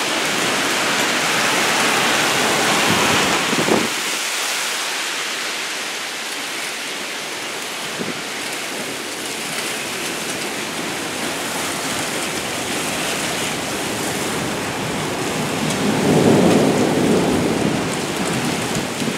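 Heavy rain and gusting wind of a severe thunderstorm, a steady rushing downpour on pavement and cars. The rush is louder for about the first four seconds, then swells again into a louder low rumble near the end.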